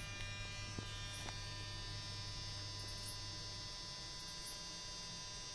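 Steady electrical hum and buzz made of many even tones, with short, faint, high falling chirps now and then.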